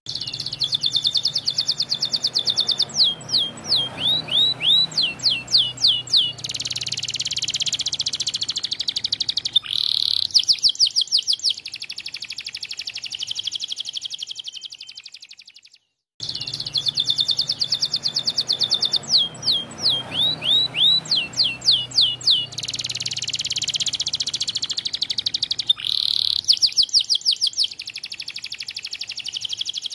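White domestic canary singing a long, energetic song of fast trills, runs of quick downward-swept whistles and rattling buzzy stretches. The song breaks off briefly about halfway, then the same sequence of phrases starts over.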